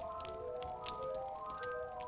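A melody of short, quick notes plays over a wood fire crackling with scattered sharp pops, one louder pop about a second in.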